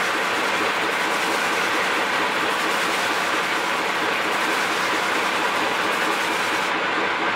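Large horizontal disc sander running, with the edge of a laminated wooden drum hoop held flat against its spinning abrasive disc: a steady, loud sanding noise.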